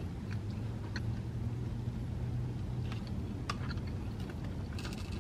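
Car engine idling: a low steady hum heard inside the cabin, with a few faint clicks and a brief rustle near the end.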